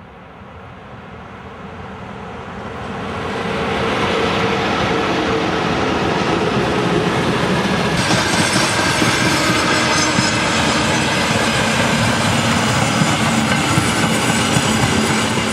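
A freight train hauled by an electric locomotive approaches and passes close by. The noise of its wheels on the rails grows over the first four seconds, then holds loud and steady as the wagons roll past.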